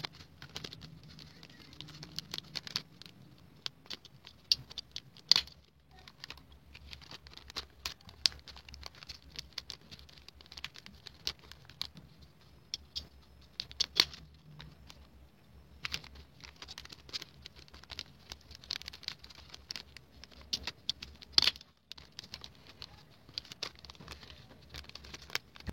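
Hands handling small items and plastic packaging: a steady run of irregular light clicks, taps and crinkles, with a few sharper ticks.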